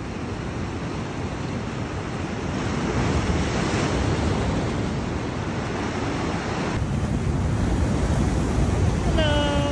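Heavy ocean surf breaking and washing white over a rock seawall, a continuous rushing noise that swells louder about three seconds in. Wind buffets the microphone.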